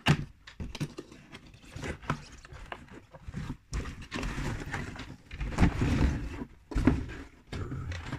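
Cardboard box being opened by hand: the lid tab is worked free and the lid pulled off, with scraping, rustling and knocks of cardboard, the busiest stretch a little past the middle.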